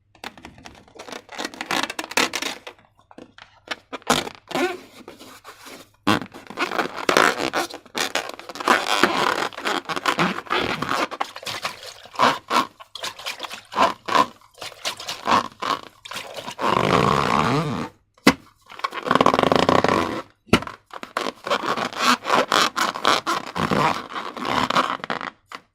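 Slime being worked by hand: irregular sticky squishing and scraping, with a few sharp clicks, one near the start and two more in the second half.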